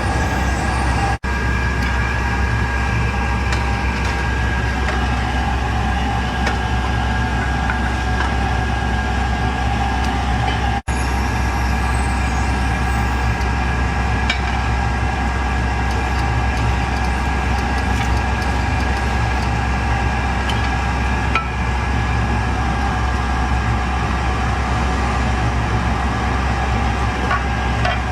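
Steady drone of a running machine with a constant whine, holding the same pitch with no rhythm, cut off for an instant twice.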